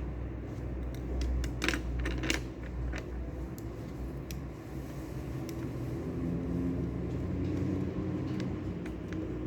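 Library room ambience: a steady low rumble with a brief cluster of small clicks and clinks about one and a half to three seconds in, and a few fainter ticks later.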